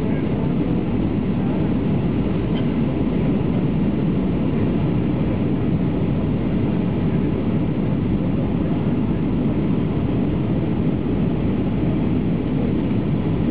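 Steady cabin noise of a Boeing 757 descending to land, heard from a window seat over the wing: an even, deep rumble of engines and airflow.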